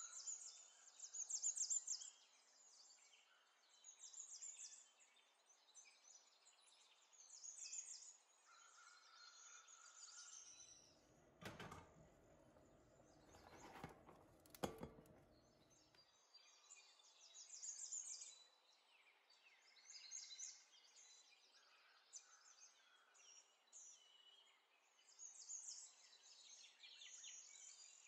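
Faint birds chirping in short bursts throughout. About halfway, a few seconds of rustling with several soft knocks as chopped cabbage is tipped from a plastic cutting board into a glass bowl.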